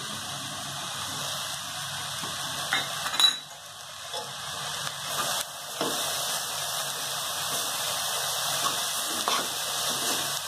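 Chopped greens frying in a metal pan with a steady sizzle, stirred with a metal spoon that scrapes and clinks against the pan. A sharp clink about three seconds in is the loudest sound.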